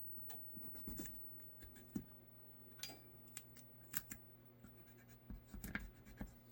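Faint, irregular taps and scrapes of small parts and tape being handled and set in place on a holster mold, a sharp tick every second or so, over a low steady hum.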